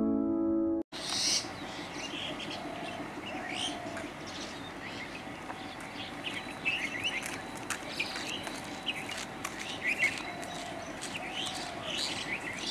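A piano tune cuts off about a second in; then many birds chirp and call over a steady background hum of outdoor noise.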